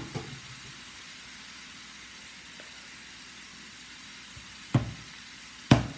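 Steady hiss of chicken frying in curry in the pot, then near the end a knock followed a second later by a loud hard clatter as an iPad falls and hits the floor.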